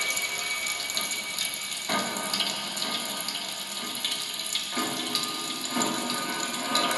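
Live experimental noise made with amplified kitchen utensils and popping candy: a dense crackling hiss like running water. A lower layer of rushing noise cuts in about two seconds in, drops out just before five seconds and returns a second later.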